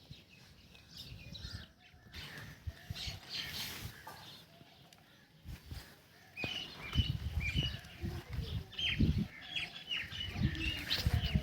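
Small birds chirping in quick short notes, thickening about halfway through, over intermittent low rumbles.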